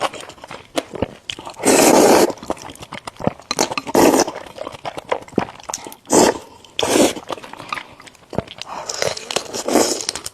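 Close-miked eating: a person biting and chewing food, with several loud noisy bursts a couple of seconds apart and small clicks of chewing in between.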